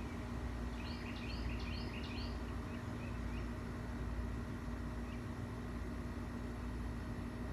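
Outdoor background noise, a steady low rumble with a faint hum, as a bird gives a quick run of about eight short high chirps about a second in.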